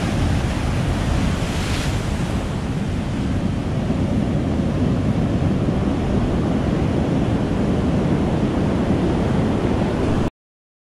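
Heavy storm surf breaking and washing up over a rocky cobble beach, a steady loud rush of water with wind buffeting the microphone. The sound cuts off suddenly near the end.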